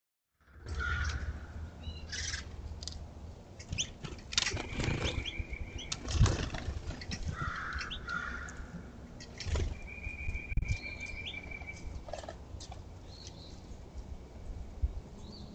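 Small songbirds at a feeder: wings fluttering as birds come and go, among chirps and short calls. A level trill about a second long sounds twice, once about a third of the way in and again past the middle.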